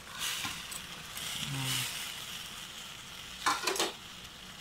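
Hot escabeche sauce cooking in a stainless steel pan as fried tilapia are laid into it with a metal spatula. The spatula clicks against the pan a few times about three and a half seconds in.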